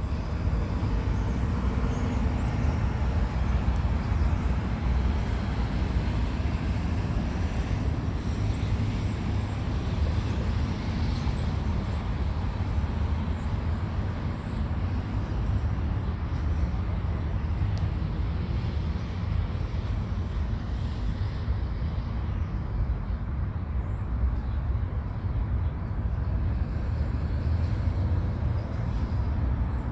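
Wind blowing steadily over the microphone, a continuous low rumbling rush without breaks.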